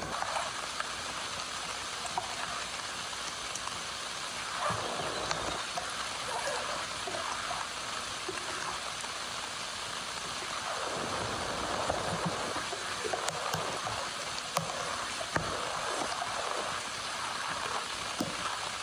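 Heavy rain falling steadily, an even hiss with scattered light taps of drops.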